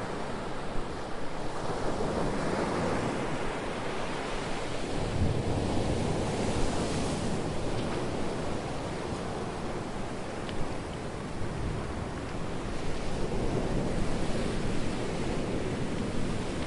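Ocean waves rolling onto a shore, a continuous wash of surf that swells and ebbs every few seconds.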